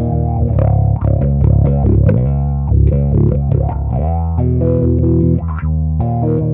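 Fender Precision Bass played fingerstyle through an EarthQuaker Devices Spatial Delivery envelope filter into a Fender Bassman amp and 4x10 cabinet. It plays a line of short, quick notes, and each pluck opens a sweeping auto-wah.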